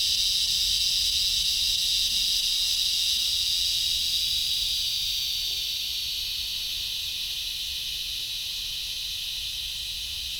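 Loud, steady high-pitched insect buzzing from a tree, with no breaks, slowly fading over the second half.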